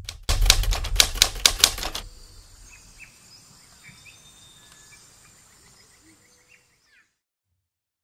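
A quick run of sharp, loud key clicks like a typewriter being typed on, lasting about two seconds, followed by faint chirping that fades away.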